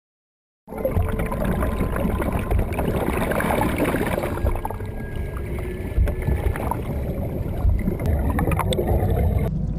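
Water churning and air bubbling around a submerged car, heard through an underwater camera: a dense, muffled rumble full of crackles. It starts about a second in and turns duller near the end.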